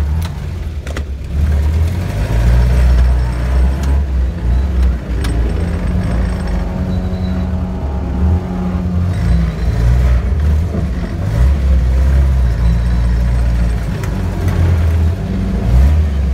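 Off-road vehicle's engine heard from inside the cab, running under load and revving up and down as the vehicle works through deep mud and water.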